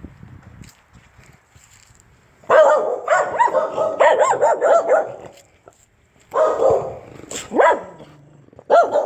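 Dog barking and whining in rapid high yips, in three bursts after a quiet start, excited at trying to get out from under a garage door.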